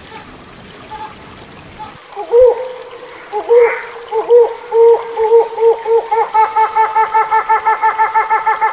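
Hornbill calling: after a couple of seconds of faint hiss, a few separate hooting notes, then a fast, even run of hoots, several a second, that carries on to the end.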